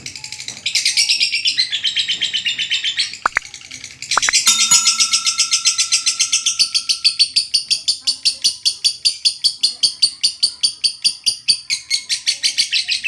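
Lovebird singing its long 'ngekek' chatter: a fast, unbroken run of shrill notes, about six a second, after a couple of sharp clicks about three to four seconds in.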